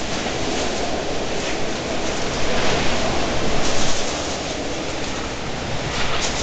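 Blizzard wind blowing hard with driven snow, buffeting the microphone in a steady rumbling rush that swells for a moment about three seconds in.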